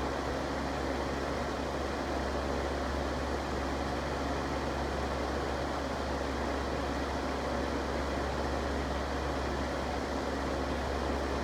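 Electric fan running steadily: a constant rush of moving air over a low, even hum.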